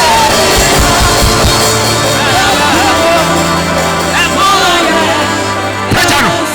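Loud church music: held bass notes that change every couple of seconds, under a wavering melody line.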